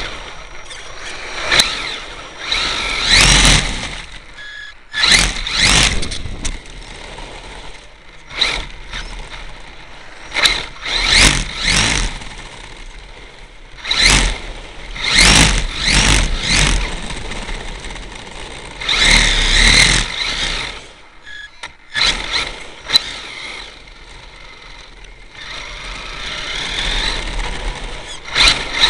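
Brushless electric drive of an HPI E-Firestorm Flux RC truck driven hard, in short loud bursts of throttle every second or two with quieter gaps between, some bursts carrying a faint high motor whine.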